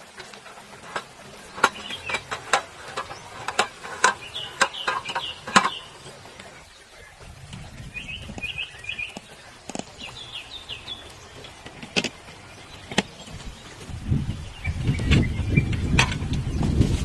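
Scattered sharp clicks and knocks, thickest in the first few seconds, with short runs of quick bird chirps several times. A low rushing noise builds near the end.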